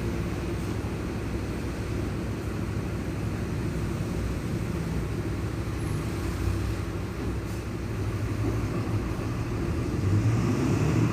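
VolksBus 17-230 EOD city bus running, its MWM 6.12 TCE turbo-intercooled six-cylinder diesel and drivetrain sounding steadily, with a loud drone from the differential. The sound grows a little louder near the end.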